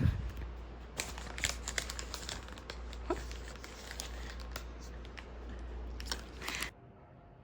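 Crinkling and rustling of something being handled, with a quick run of small sharp clicks and one short squeak about three seconds in; it stops abruptly near the end.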